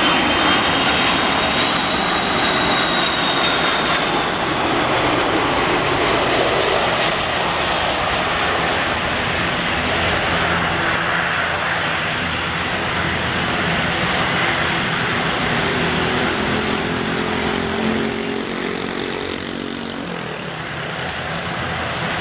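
Boeing 747-400's four General Electric CF6-80C2 turbofan engines heard as the airliner lands, with a high fan whine in the first few seconds over steady jet noise. The jet noise carries on through touchdown, about halfway in, and the landing rollout.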